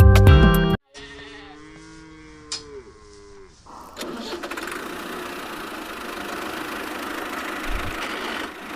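Music stops abruptly, then a long bleating animal call that falls in pitch, followed from about halfway through by a steady noisy running sound.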